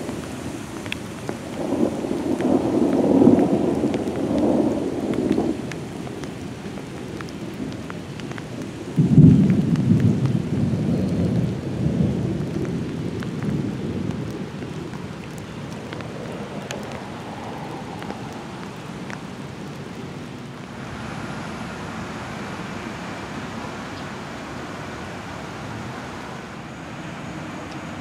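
Thunder rumbling twice: a long roll about two seconds in, then a sharper clap about nine seconds in that dies away over several seconds, over a steady hiss.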